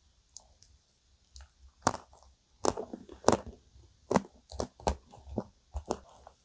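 Close-miked eating sounds of ice cream cake: a quick series of sharp wet mouth clicks and smacks, starting about two seconds in.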